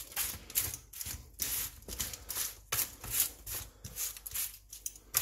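Kitchen tongs pushing roast potatoes and vegetables about on a parchment-lined baking tray: a run of irregular scraping and rustling strokes, several a second.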